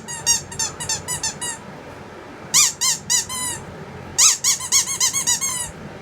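Rubber squeaky toy squeaked over and over in three quick runs, each squeak a short high pitched chirp that rises and falls.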